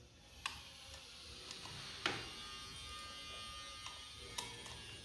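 A few separate light metal clicks from a ratchet and socket being handled and fitted together, over a faint steady hum.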